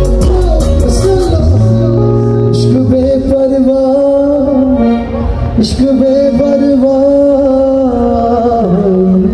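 Live band music played loud through a stage PA, with a male singer over long held notes. The drum beat stops about half a second in.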